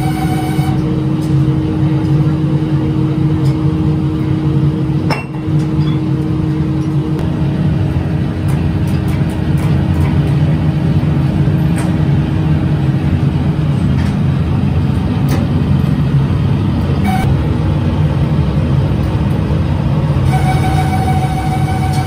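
Steady drone of workshop machinery with a constant hum and scattered sharp clicks, and a higher whine with overtones in the first second and again near the end.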